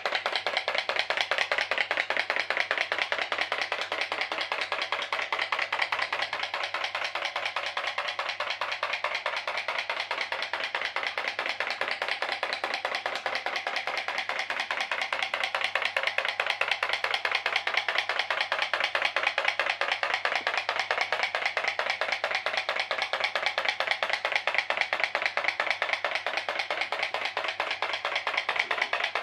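Pop pop boat's aluminium drinks-can boiler, heated by tea lights, popping in a fast, even, unbroken tick as it pulses water through its aluminium tubes to drive the boat.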